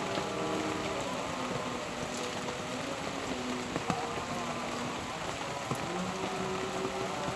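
Steady rain falling on surfaces, with a few sharper drop clicks standing out. Faint held tones, shifting in pitch every second or so, sound underneath.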